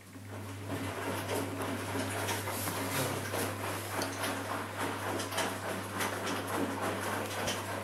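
Ardo A 500L front-loading washing machine in the wash stage of a 60° cotton programme, after the water has heated: the drum motor starts up after a pause with a steady low hum, and wet laundry and soapy water slosh and thud irregularly as the drum turns.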